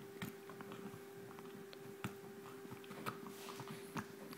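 French bulldog puppy chewing and mouthing a rope toy: faint scattered clicks and rustling, with a few sharper ticks.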